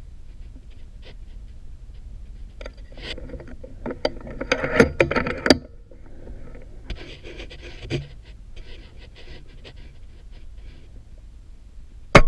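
Rustling and clicking handling noise around a scoped FX Impact M3 .30-calibre PCP air rifle, loudest a few seconds in, then a single sharp, loud crack near the end as the rifle fires.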